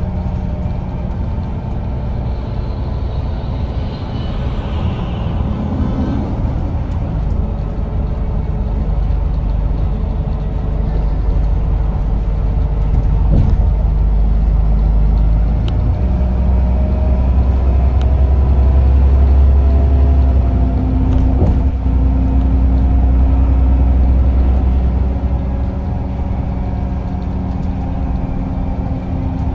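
Vehicle running steadily under a continuous low rumble, with several steady engine or motor tones. The rumble grows louder about halfway through as the vehicle picks up speed, then eases off near the end.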